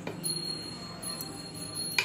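A steady, high, bell-like ringing tone held for most of two seconds, cut off by one sharp clink of a steel spoon against a steel bowl at the end.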